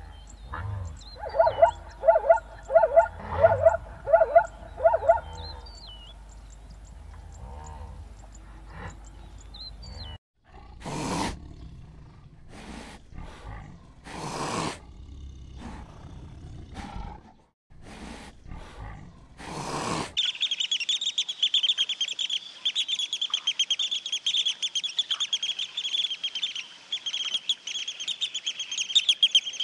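A zebra barking in a run of about eight yelping calls, then, some seconds later, a tiger giving several short roars and growls. From about two-thirds of the way through, a dense, steady chorus of small birds chirping rapidly, high in pitch.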